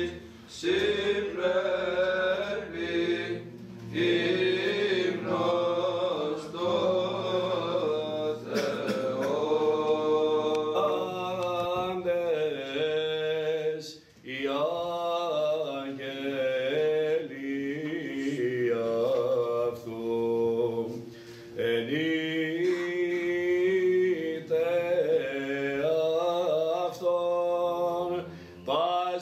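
Male choir of young men chanting a Byzantine Orthodox hymn in Greek, the melody sung over a steady low held drone (the ison), in long phrases with brief pauses between them.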